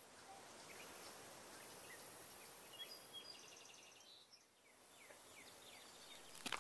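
Faint outdoor nature ambience: a soft steady hiss with scattered bird chirps and a quick bird trill a little past three seconds in. A couple of sharp clicks come near the end.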